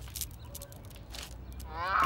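A cartoon character's short whining vocal call near the end, rising in pitch.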